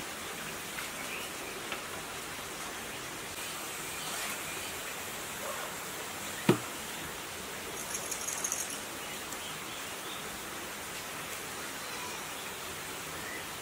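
Steady background hiss, with one sharp click about halfway through and a brief crackling rustle a second or so later as cloth tape is pulled and handled around the coil windings of a generator stator.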